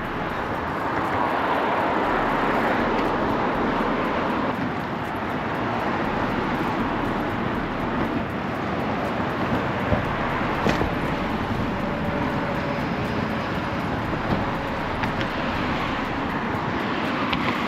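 Steady rush of wind over the microphone and tyre noise from a bike ridden at speed along a paved path, with a couple of light knocks about ten seconds in.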